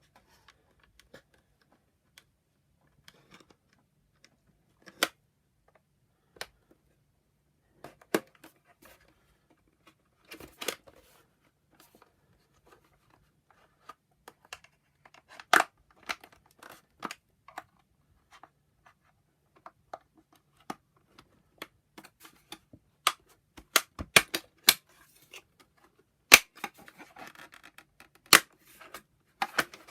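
Plastic cover of a Bissell ProHeat 2X Revolution carpet cleaner being pried off by hand: scattered sharp clicks and snaps as its plastic clips let go, coming thicker and louder near the end.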